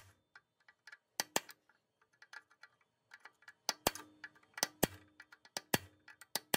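Steel pin punch being tapped with a hammer against a roll pin in a lawn edger's steel frame: a scattering of sharp metal-on-metal taps, several in quick pairs, each leaving a short ring.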